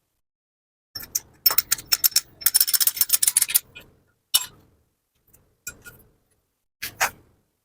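Metal clicks and clinks of hand tools and engine parts being handled, with a rapid run of clicks about halfway through and a few single knocks after it.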